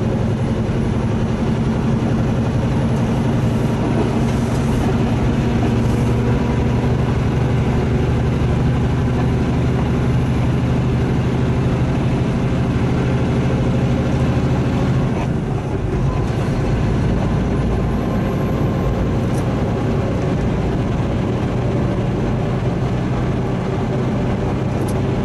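Semi truck's diesel engine running steadily, heard from inside the cab over road noise, with a brief dip and change in the engine note about fifteen seconds in.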